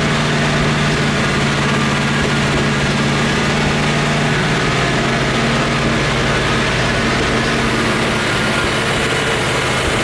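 Chevrolet Corvette C4's V8 idling steadily with a slight misfire, which the mechanic traces to the number one cylinder.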